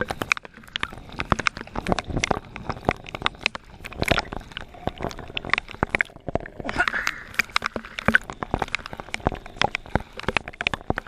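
Choppy seawater sloshing and splashing close by, with many sharp, irregular knocks and clicks.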